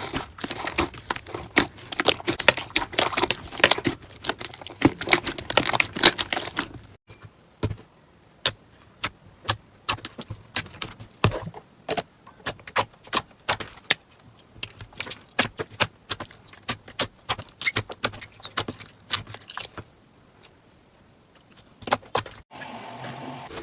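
Slime being squeezed and pressed by hand, crackling and popping in dense clicks for the first seven seconds. After an abrupt cut there are sparser, separate pops and clicks, then another cut near the end.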